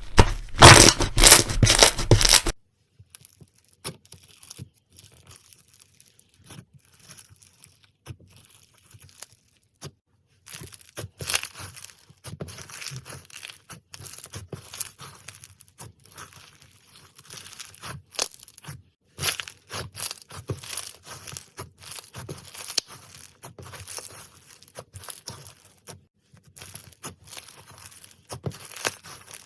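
Slime being squeezed and stretched by hand, making crackling, sticky popping sounds. It is loud and dense for the first couple of seconds, then it changes abruptly to quieter, scattered clicks and crackles.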